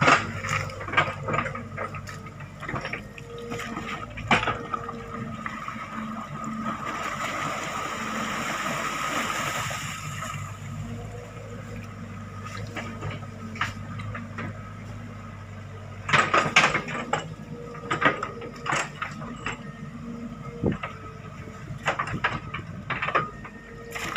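Hydraulic excavator's diesel engine running steadily as the bucket digs and dumps wet mud, with repeated clanks and knocks from the bucket and a louder rush of noise about seven to ten seconds in.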